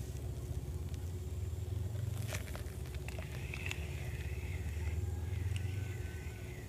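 Spinning reel being cranked as a fish is brought in: a thin, wavering whir that rises and falls at a regular pace, starting about three seconds in, with a few sharp clicks just before. A steady low rumble lies under it all.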